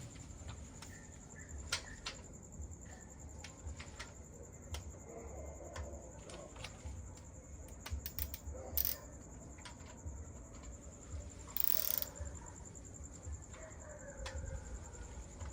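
Scattered clicks and light knocks from hand-tool work on an engine, over a steady high-pitched insect drone, with a short burst of noise near the twelve-second mark.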